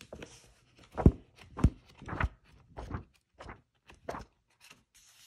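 A series of soft thumps, roughly evenly spaced at about two a second.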